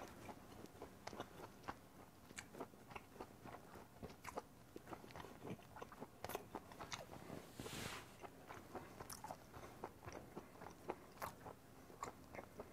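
A person chewing a mouthful of grilled beef close to the microphone: faint, scattered wet mouth clicks and smacks, with one longer breath about eight seconds in.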